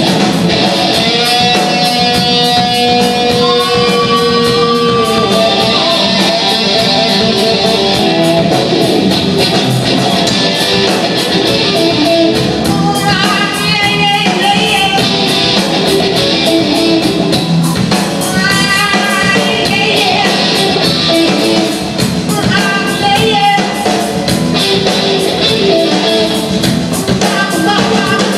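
Live rock band playing loudly, with electric guitar, bass guitar and drum kit, and a singer's voice over the band.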